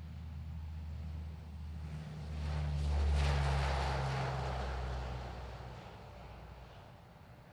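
C-130H Hercules four-engine turboprop at takeoff power, lifting off and climbing past. A low propeller drone swells to its loudest about three seconds in, drops slightly in pitch as the aircraft passes, then fades.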